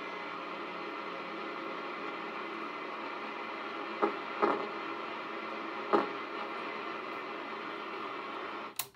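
Hiss and static from the speaker of a National NC-121 shortwave receiver tuned between stations, with three short crackles in the middle. Near the end the sound cuts off suddenly with a click.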